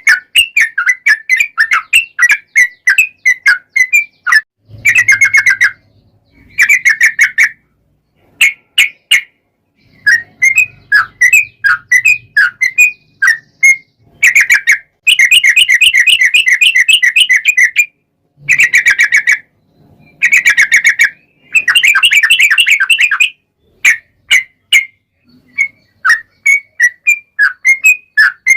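Yellow-vented bulbul (trucukan) singing: quick, loud chirping notes broken by several fast rolled trills, the longest lasting about three seconds.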